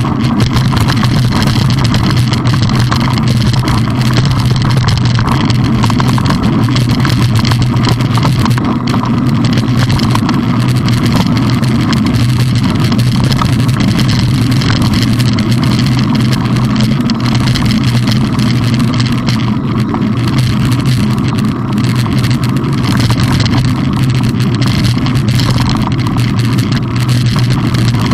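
Steady riding noise of a mountain bike on a gravel track, picked up close by a camera on the bike: a constant low rumble with continual rattling and clicking from the tyres and frame over the stones.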